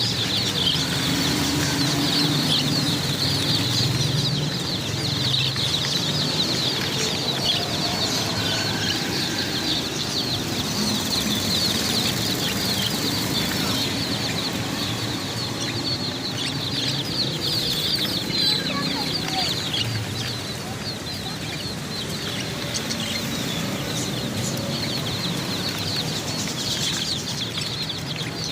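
A crowd of baby chicks peeping continuously, a dense chorus of many short, high peeps overlapping without pause.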